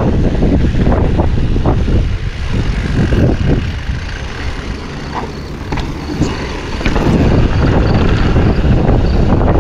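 Commencal Supreme DH29 downhill mountain bike rolling fast down a gravel path: tyres crunching on gravel, wind buffeting the camera's microphone, and scattered knocks and rattles from the bike over bumps. The noise drops off about two seconds in and builds again about seven seconds in.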